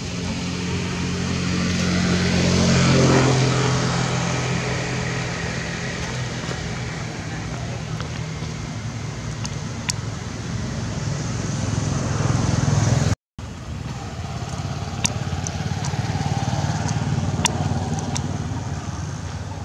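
A motor vehicle engine runs nearby, swelling loudest about three seconds in as it passes. After a cut about two-thirds of the way through, a steady engine hum goes on with a few sharp clicks.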